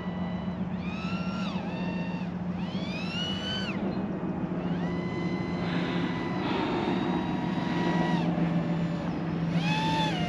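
Small battery-electric RC plane's motor and propeller whining, the pitch rising and falling several times as the throttle is worked, over a steady low hum.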